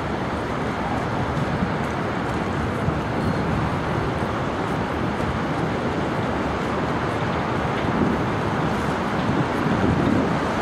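Steady low rumble of wind and boat engine noise, with no distinct events.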